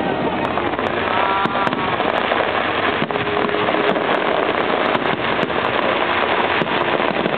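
Aerial fireworks going off in a dense barrage: many overlapping shell bursts and crackling, loud and continuous, with no gaps between bangs.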